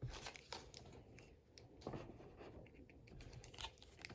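Faint, scattered taps and rustles of trading cards and packs being handled, with a soft knock at the start and another about two seconds in.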